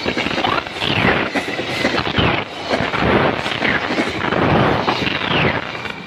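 KA Pasundan passenger coaches passing close by: a heavy rumble and clatter of steel wheels on the rails, with several brief high squeals that fall in pitch. The noise eases a little near the end as the last coach goes by.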